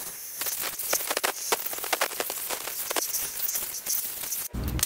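Compressed-air blow gun hissing in rapid, uneven blasts into a washed cast-iron Harley-Davidson Shovelhead cylinder, blowing the water out of it, then cutting off suddenly near the end.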